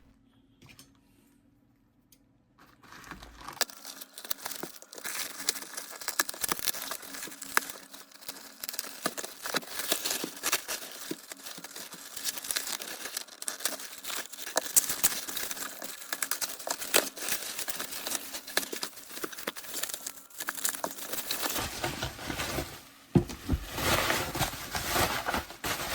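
A courier package's plastic wrapping being torn open and unwrapped by hand: irregular crinkling, rustling and tearing that starts about three seconds in, with heavier handling near the end.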